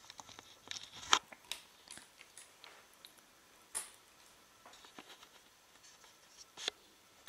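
A few faint, scattered clicks and taps from handling, the sharpest about a second in and two more near four and near seven seconds.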